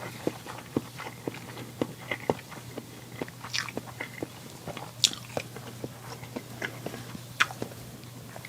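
A person chewing food close to the microphone: irregular wet mouth clicks and smacks, one or two a second, over a faint steady hum.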